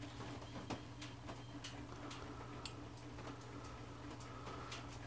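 Faint, irregular light ticks from a thin metal pick working fresh epoxy over a cork riser on a brass saxophone key, over a steady low hum.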